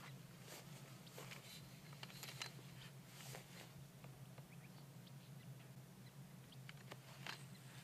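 Near silence: faint scattered clicks and rustles over a low steady hum.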